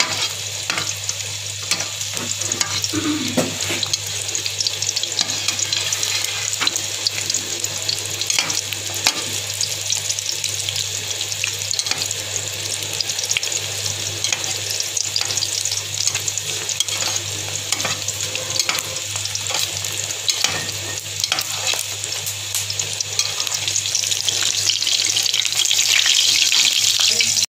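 Beaten eggs frying in hot oil in a steel pan, sizzling steadily with scattered pops and crackles, getting louder near the end.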